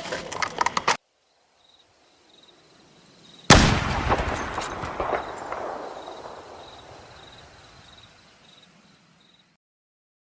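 A single sudden loud bang about three and a half seconds in, like a gunshot, with a long echoing tail that fades away slowly over several seconds.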